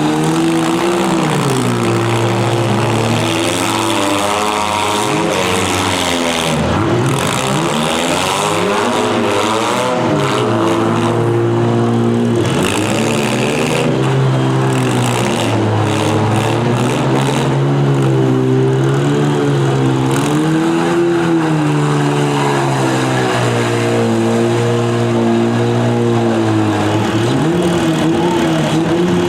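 Several demolition derby car engines revving hard, their pitch rising and falling over and over without a break, with a few brief harsh noises in between.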